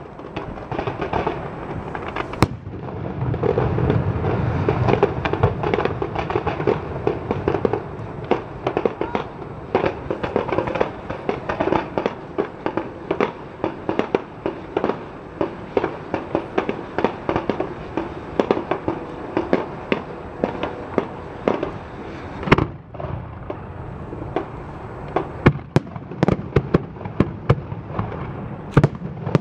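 Fireworks display finale: a dense, continuous barrage of bangs and crackling shell bursts, heaviest and most rumbling a few seconds in, with a single loud crack about two seconds in.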